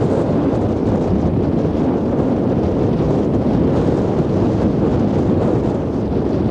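Strong sea wind buffeting the microphone in a steady low rumble, over the wash of waves breaking on the beach.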